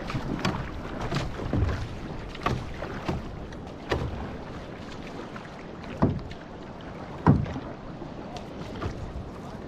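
Outrigger canoe (va'a) under way: paddle strokes splashing at irregular intervals over a steady rushing noise of water, the sharpest splash about seven seconds in.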